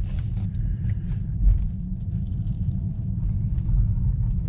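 Low steady rumble of road and tyre noise inside the cabin of a moving Tesla Model 3 Performance electric car. There is a louder bump about one and a half seconds in, and faint clicks and rattles now and then.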